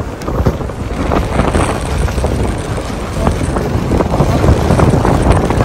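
Strong, gusty wind buffeting the microphone, a loud steady rush with irregular buffets.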